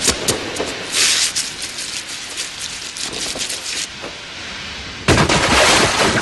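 A dancer's shoes tapping and scuffing on wet pavement, with hissing from spray or steam. About five seconds in, a sudden loud splash as he drops to his knees in a puddle.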